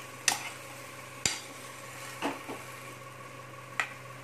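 Metal spoon stirring chopped potatoes in a steel pan, with about five sharp knocks and scrapes of the spoon against the pan.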